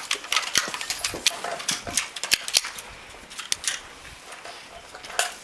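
Irregular sharp cracks of rifle shots fired along the firing line, sometimes several in quick succession, during a standing-to-prone rapid-fire string.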